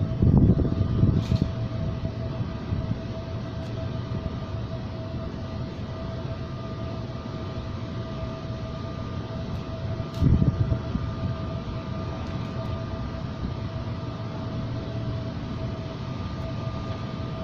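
Steady mechanical hum: a low rumble with a constant pitched tone running through it, swelling briefly louder about ten seconds in.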